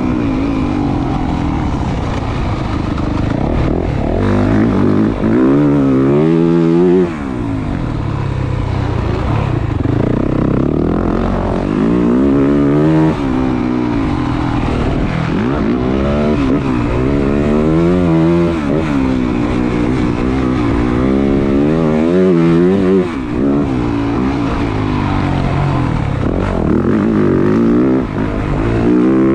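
A 2023 Yamaha YZ450F's single-cylinder four-stroke motocross engine under hard riding. The revs climb and fall again and again as the throttle is opened and chopped, with a few short dips in the sound.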